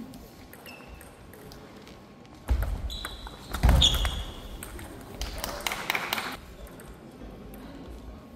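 Table tennis rally: the plastic ball clicking off paddles and the table, with two louder knocks and thuds about two and a half and three and a half seconds in, carrying short high squeaks.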